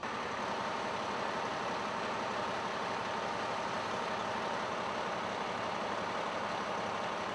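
Pierce fire engine's diesel engine running steadily at idle, a constant drone with no breaks.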